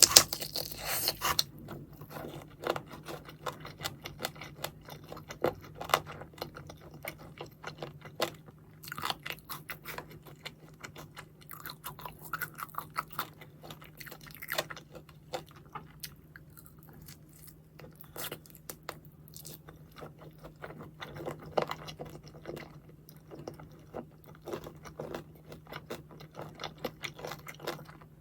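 Close-miked biting and chewing of crispy fried chicken. There is a loud crunch right at the start, then steady chewing with irregular smaller crunches.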